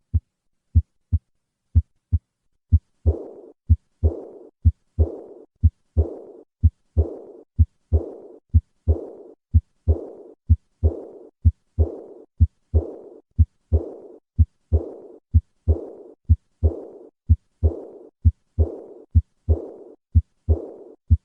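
Recorded heartbeat: about three plain lub-dub beats, then a high-pitched, fading (decrescendo) diastolic murmur following each second heart sound, beat after beat, roughly once a second. This is the murmur of aortic regurgitation.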